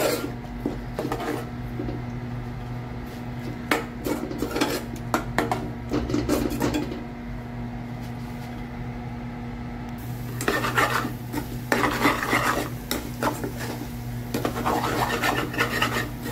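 A metal spoon scraping and clinking against a stainless steel saucepan as egg is stirred into a masala, in spells of quick strokes, over a steady low hum.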